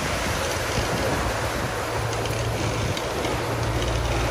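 Wind and sea water rushing past a sailing catamaran's hulls in choppy waves, with wind buffeting the microphone. A low rumble grows stronger about three and a half seconds in.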